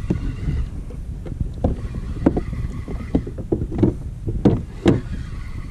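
Wind rumbling on the microphone and water slapping against a fishing kayak's hull, with a string of short sharp knocks about one to three seconds in and near the end.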